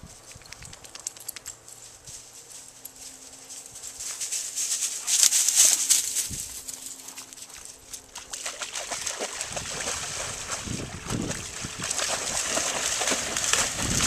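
Rhodesian Ridgeback dog running and splashing through shallow river water, its paws slapping the surface in quick, irregular splashes that come thick and fast in the second half.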